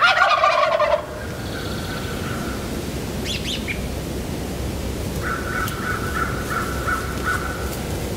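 Wild turkey tom gobbling close by: a loud, rattling gobble about a second long at the start, followed by fainter, more distant bird calls.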